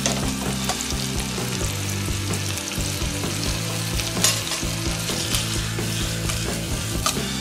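Pappardelle and crispy pancetta sizzling in a nonstick frying pan as the pan is tossed, with a few sharp clatters of the pasta and pan through the middle and near the end.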